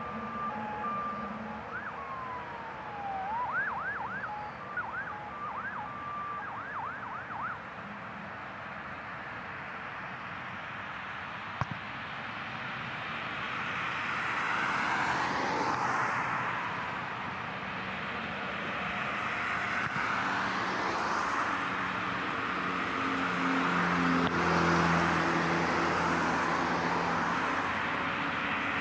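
A siren wails in quick rising-and-falling sweeps for the first several seconds. Then the roar of a Boeing 747's jet engines builds, with slow sweeping shifts in tone, and is loudest near the end.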